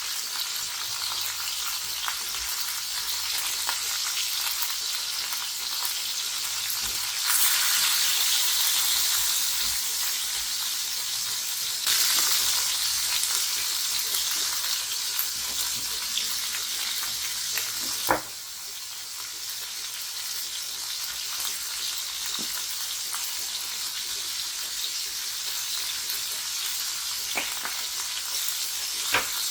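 Food frying in hot oil in a pan: a steady sizzle that swells louder about seven seconds in and again about twelve seconds in. A sharp knock comes around eighteen seconds in, after which the sizzle is quieter, and there are a few light clicks near the end.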